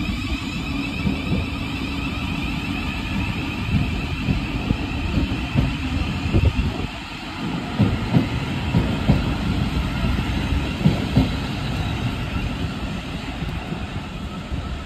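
Electric train rumbling on the railway bridge, with a wavering high whine that fades out over the first six seconds. Wind buffets the microphone in gusts.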